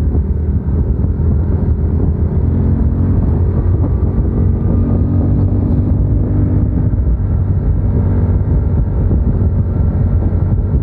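Motorcycle engine running steadily under way, with a low rumble and slight shifts in engine pitch, and wind noise on the microphone.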